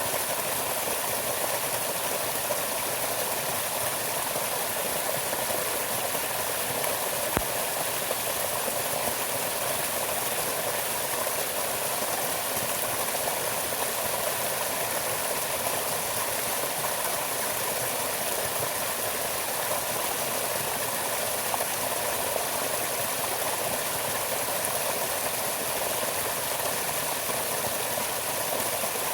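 Steady rush of running water, like a stream, with one brief click about seven seconds in.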